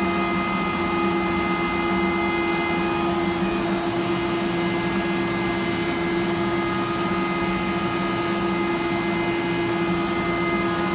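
Steady electric motor hum with a fixed whine, unchanging in level and pitch.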